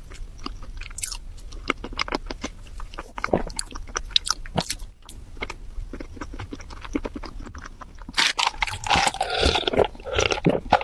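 Close-miked crunching and chewing of food: rapid crisp crunches through most of the clip. About eight seconds in, the sound turns louder and denser.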